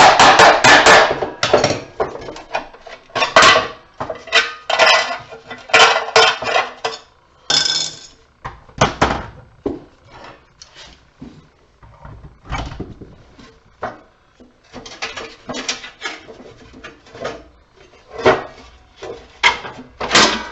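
Metal clattering and knocking: a metal light fixture and its parts being struck, rattled and pulled apart for scrap. A dense run of clatter at the start, then separate knocks and rattles every second or so.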